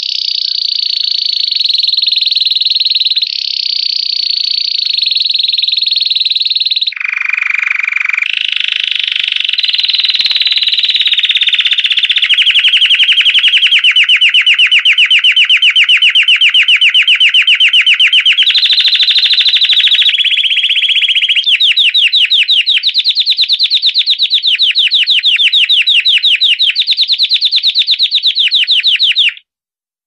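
Belgian canary singing a continuous 'campainha' (bell) song: long runs of rapid, high trills that change to a new phrase every few seconds, cutting off suddenly just before the end.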